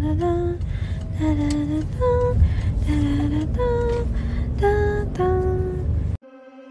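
Background music: a slow melody of single held notes over a steady low rumble. It cuts off abruptly about six seconds in.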